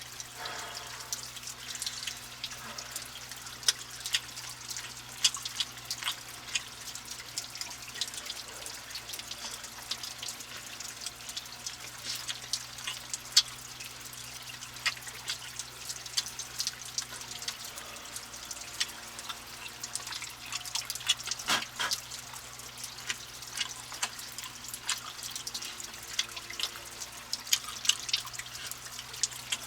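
Water dripping, with irregular sharp drops and ticks over a steady low wash of background noise.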